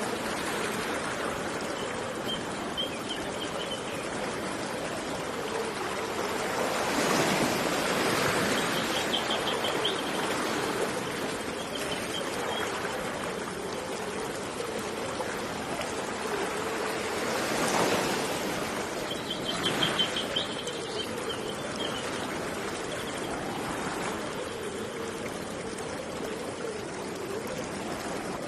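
River water flowing steadily, swelling louder twice, with a small bird giving short rapid trills several times over it.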